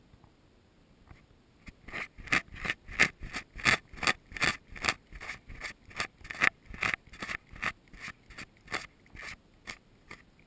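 A cat licking close to the microphone: short rasping strokes of its rough tongue at about three a second, starting about two seconds in and easing slightly toward the end.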